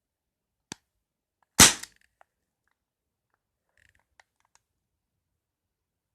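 CO2-powered BB pistol firing: a light click, then one sharp, loud shot about a second and a half in, a few faint clicks of handling, and a second shot right at the end.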